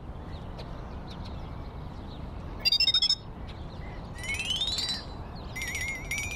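Outdoor park ambience with birdsong: a steady background hiss, a short burst of rapid high chirping about three seconds in, then a rising whistle and a warbling trill near the end.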